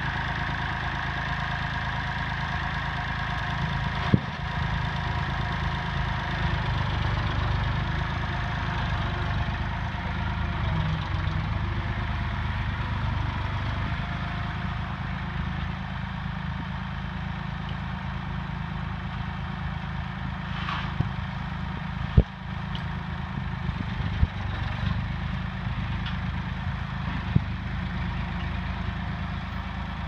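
Massey Ferguson 20C backhoe's three-cylinder diesel engine running steadily as the machine drives about, with a few sharp knocks along the way.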